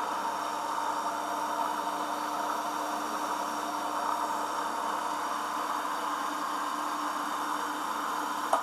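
Homemade belt grinder running steadily with nothing being ground: an even motor hum with steady whining tones over a rush of belt and air noise.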